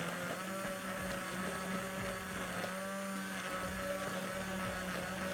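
Hand-held immersion (stick) blender running in a steel pot, puréeing potato soup: a steady, even motor hum.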